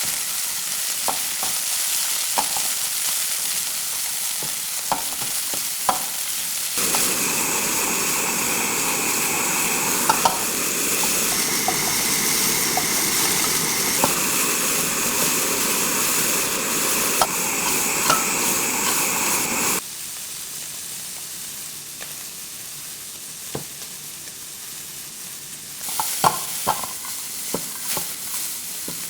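Food sizzling as it fries in a pan while being stirred, with sharp clicks and knocks of the spatula against the pan. The sizzle grows louder through the middle, where a steady high tone runs alongside, then drops back, and the spatula knocks pick up again near the end.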